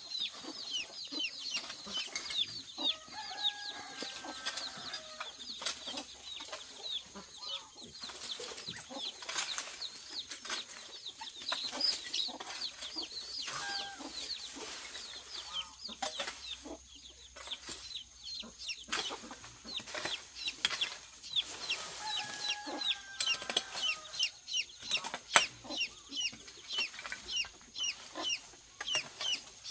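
Chickens clucking, with a steady stream of short, high, falling cheeps throughout and a few longer held calls. A single sharp knock about 25 seconds in.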